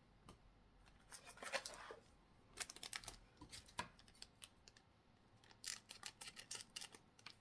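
Faint handling of Pokémon trading cards and their packaging: small flicks, clicks and rustles in three short clusters.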